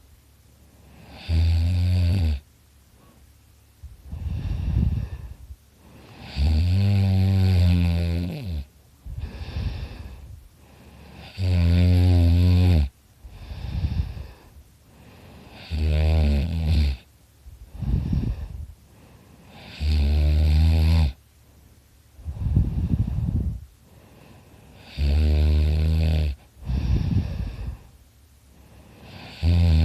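A sleeping person snoring very loudly in a steady rhythm: six loud, buzzing snores, about one every four to five seconds, with softer breathy breaths between them.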